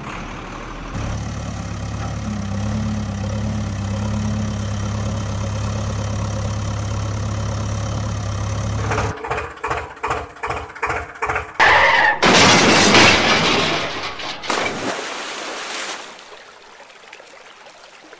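Dubbed-in engine sound effects for toy vehicles: a steady truck engine hum, then quick rhythmic chugging like an engine starting about nine seconds in. A loud burst of rushing noise follows, which dies away to a quieter stretch near the end.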